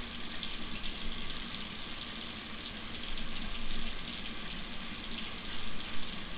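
Water running steadily from a tap, a even rushing noise, with a low steady hum underneath.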